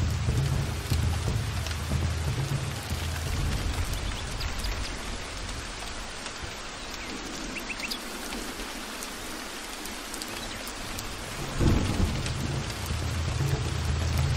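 Heavy rain falling steadily, with low thunder rumbling that dies away in the middle. About two-thirds of the way through a sudden loud thunderclap breaks, and the thunder rolls on after it.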